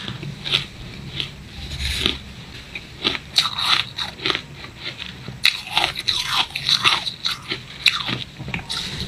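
Fine, powdery shaved ice being bitten and chewed: crisp, irregular crunches, coming thickest in runs a little past a third of the way through and again through most of the second half.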